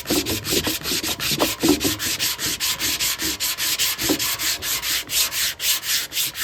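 A sanding block worked back and forth by hand over cured body filler on a Harley-Davidson gas tank, in quick, even rasping strokes, about five a second. The filler is being knocked down to the tank's shape.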